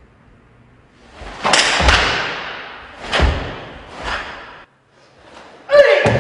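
A karateka's bare feet striking and stamping on a wooden dojo floor while performing a kata, with the gi snapping. There is a cluster of thuds about a second and a half in, two more single thuds, and the loudest thud near the end with a brief held tone over it.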